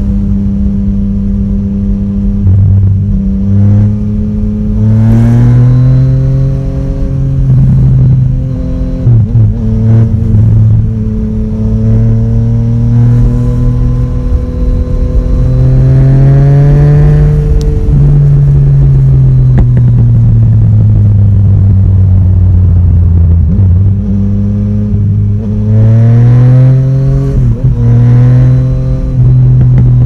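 Yamaha Tracer 900 GT's crossplane three-cylinder engine, fitted with an Akrapovic exhaust and freshly dyno-tuned with Woolich, pulling hard three times with its revs climbing. Each pull breaks sharply at an upshift, and the revs sink back as the throttle eases between pulls, with wind rumble on the microphone.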